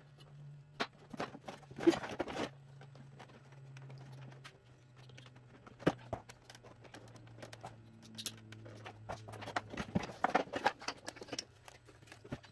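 Plastic clicks, knocks and rattles of a Honda GL1200 Gold Wing's instrument cluster being worked loose and lifted out of the front fairing, the loudest knocks coming about two seconds in and again near the end, over a faint steady low hum.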